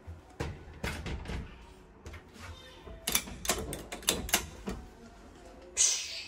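One-handle master controller in an electric-train cab being worked through its notches: a run of sharp clicks and clacks, with a denser cluster of clicks halfway through. A short burst of hiss comes near the end.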